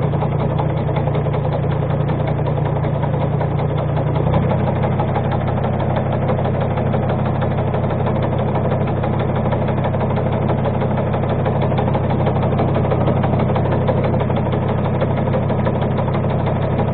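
Tractor engine running steadily under load as it drives a tree shaker that is shaking a walnut tree; about four seconds in the engine speed steps up slightly and holds.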